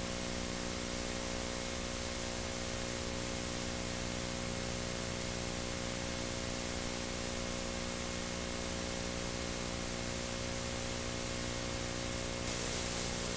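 Steady tape hiss with a low mains hum and its overtones from a digitized VHS tape playing with no programme sound; the hiss grows slightly brighter near the end.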